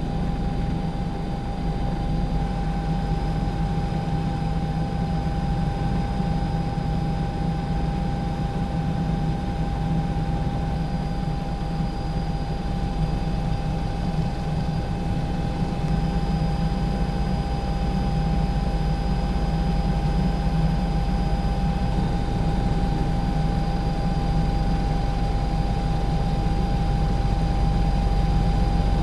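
Steady drone of a helicopter's engine and rotors, with a constant high whine over a heavy low rumble, heard from aboard the aircraft.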